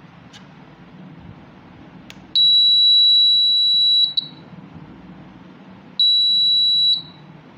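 Electronic buzzer of a homemade door alarm sounding a steady high-pitched beep twice: first for a little under two seconds, then, after a pause, for about a second.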